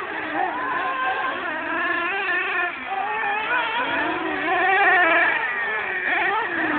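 Several radio-controlled cars racing on a dirt track, the high-pitched whine of their small motors overlapping and rising and falling as the throttles open and close.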